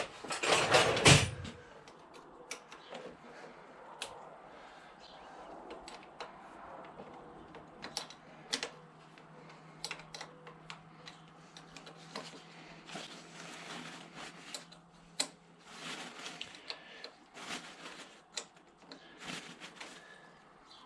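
Scattered clicks and taps of hand tools as small 8 mm bolts are undone on a motorcycle handlebar to free a heated-grip control module, with a louder clatter in the first second and a half.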